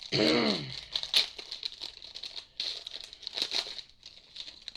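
Foil trading-card pack wrapper crinkling and tearing as it is handled and opened, in several bursts. A short pitched hum rises and falls near the start.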